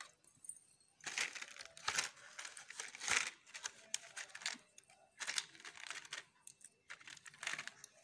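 Clear plastic bag of miniature dollhouse furniture crinkling in irregular bursts as it is handled.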